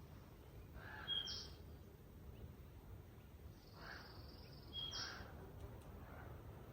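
Birds calling in the forest: short harsh calls about a second in and again around four to five seconds in, over a faint low outdoor rumble.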